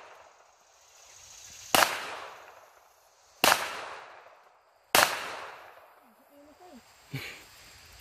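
Ruger LCP .380 pocket pistol fired three times, one shot at a time, about a second and a half apart. Each crack trails off over about a second, and a fainter crack follows near the end.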